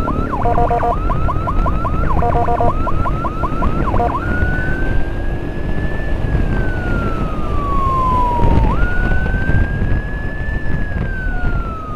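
Electronic emergency-vehicle siren, first in a fast chirping yelp pattern, switching about four seconds in to a slow wail that jumps up and then slides down in pitch, twice. Underneath is the low wind and road rumble of a moving motorcycle.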